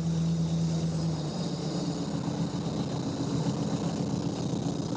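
Classic Lada four-cylinder engine running, driving the gear-type hydraulic pump that powers the car. Its steady tone drops and turns rougher about a second in.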